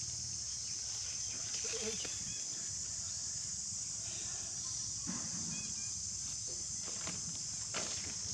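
Outdoor ambience dominated by a steady, high-pitched insect drone, with a few brief faint squeaks and rustles over it.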